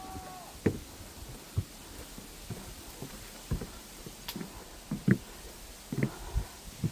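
Irregular soft low thumps and knocks, roughly one a second, over a faint steady hiss.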